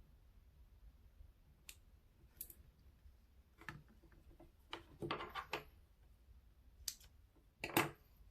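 Irregular light clicks and taps of small hand tools and a wire being handled during hand soldering, with a short cluster a little past the middle and the loudest tap near the end, over a low steady hum.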